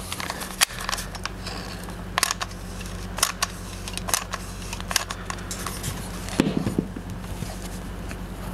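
Irregular sharp clicks and snaps, roughly one a second, from hands working foam patch pieces on a seat cushion, over a steady low electrical hum.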